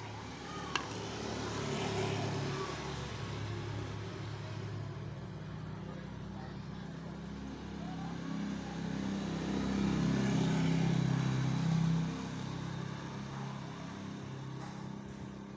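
A motor vehicle engine running, swelling in level about two seconds in and again from around nine to twelve seconds, then dropping off suddenly.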